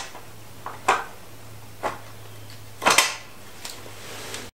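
Handling noises: a few light clicks and taps, with one louder rustling knock about three seconds in, as a rifle magazine and a marker pen are handled over a foam sheet, above a steady low hum. The sound cuts off suddenly near the end.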